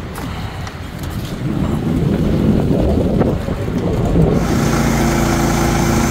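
Woodland Mills HM122 portable sawmill's small gas engine running, rising about four seconds in to a steady, higher-speed run that drives the band blade.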